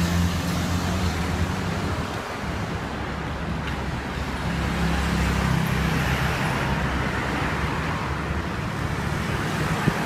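Road traffic going by: passing vehicles' engines and tyres make a continuous hum that swells and fades as vehicles pass.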